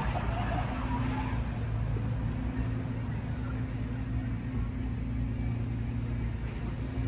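Steady low engine hum of a motor vehicle.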